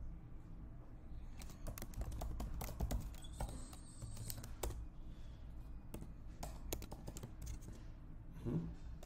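Typing on a computer keyboard: scattered key clicks in irregular runs, thinning out near the end, over a low steady hum.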